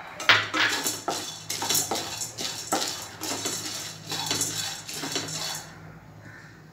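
Wooden spatula stirring dry split gram (futane dal) in a non-stick kadhai as it dry-roasts, the grains rattling and scraping against the pan with each stroke. The stirring stops near the end, leaving a faint low hum.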